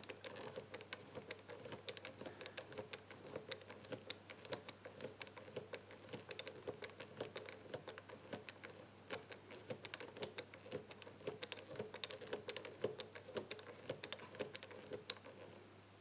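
Rapid, irregular light clicking of a four-wheel combination bike lock's number wheels being turned by finger, each wheel ticking past its number detents as they are felt for the true gates.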